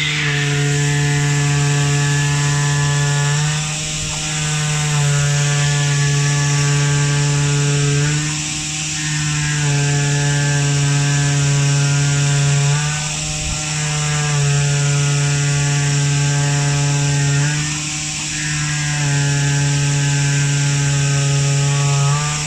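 CNC oscillating knife cutting machine running as it cuts foam: a steady motor whine over a hiss, its pitch dropping and then rising again about every four to five seconds.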